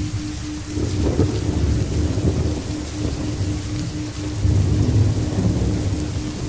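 Steady rain with rolling thunder, the rumble swelling about a second in and again around four and a half seconds in. A faint low tone pulses steadily underneath.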